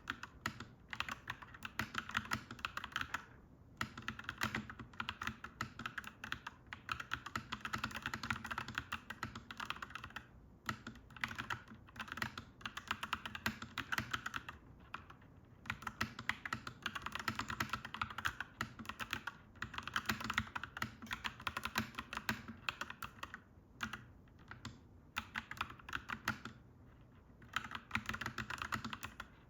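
Continuous typing on a clacky mechanical keyboard: dense runs of keystrokes broken by a few short pauses.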